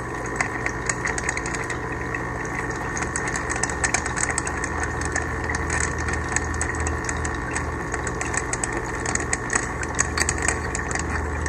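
Steady machine hum, like a small motor or pump running, with light irregular clicks and ticks as the sensor's fittings are handled and threaded back in by hand.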